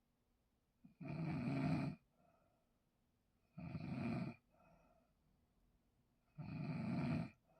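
A person snoring loudly: three long snores, each lasting about a second and coming roughly every two and a half to three seconds, with a faint breath after each.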